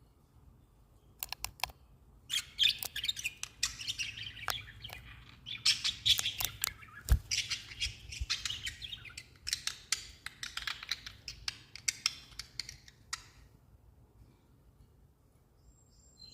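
Budgerigars chattering in bursts of rapid, high chirps and clicks, with one low knock about halfway through; the chatter stops about three seconds before the end.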